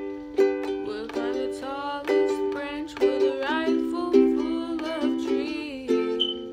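Ukulele playing a song in strummed chords, a fresh strum landing every half second or so.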